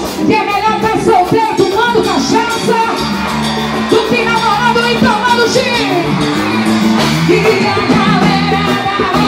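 Live forró band music with a woman singing lead through the PA.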